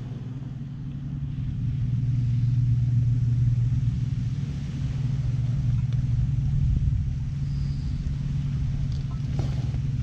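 A steady low rumble that swells over the first two seconds and then holds, with a few light knocks near the end.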